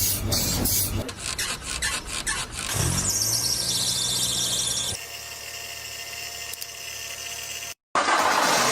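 A high-pitched squeal that slides downward in pitch over a low hum, following a stretch of rapid scraping; the sound cuts off abruptly.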